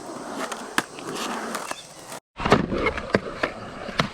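Skateboard rolling on concrete, with the steady rumble of the wheels and several sharp clacks of the board. The sound drops out completely for a moment about halfway through.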